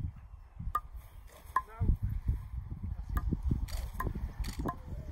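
A golf club striking a ball off the tee: a sharp crack about three and a half seconds in. Under it runs a low rumble of wind on the microphone, with a few lighter clicks.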